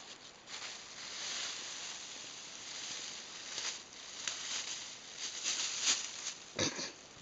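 A thin white plastic carrier bag rustling and crinkling in irregular bursts as a cat paws at it and pushes its head inside, loudest near the end.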